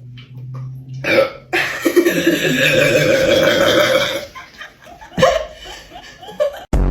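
A person burping loudly after gulping Sprite: a short burp, then one long, drawn-out burp lasting nearly three seconds, then a couple of short sounds. A sudden, very loud low sound starts just before the end.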